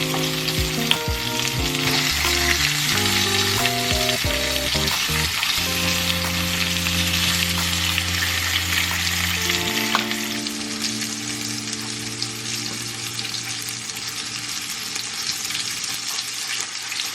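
Steady sizzling of food frying in a pan, with background music playing over it for the first ten seconds or so.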